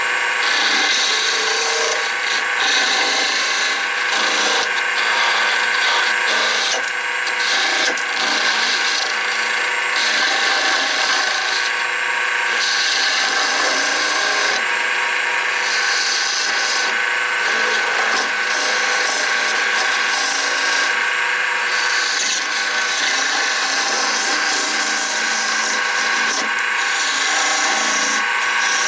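Wood lathe running with a steady motor whine while a turning tool cuts into the spinning wooden jig, a scraping hiss of wood being shaved that comes and goes as the tool is pushed in and drawn back in short passes.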